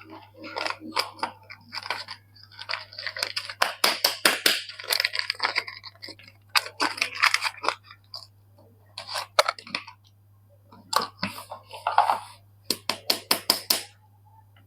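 Crisp crackling and crunching as soap bars are unpacked from their wrappers, in quick runs of sharp clicks with short pauses between.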